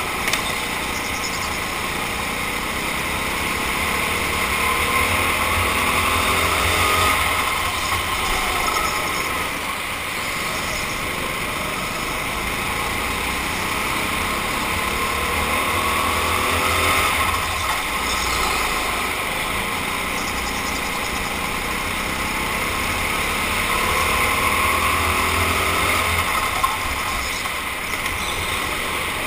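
Racing go-kart engine revving up and down again and again through the corners of the lap, the pitch rising on the straights and dropping into the turns.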